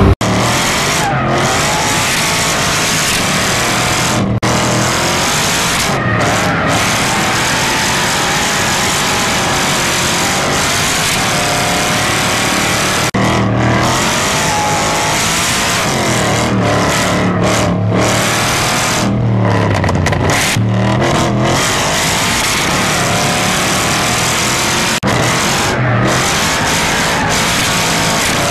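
Car engine heard from inside the cabin during hard driving, revving up and falling back over and over, with brief drops in the sound between pulls.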